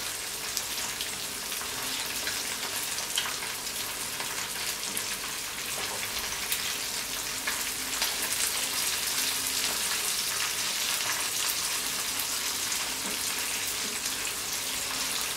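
Fresh anchovies shallow-frying in hot olive oil in a frying pan: a steady sizzle with fine crackling. A few light clicks come from forks turning the fish in the pan.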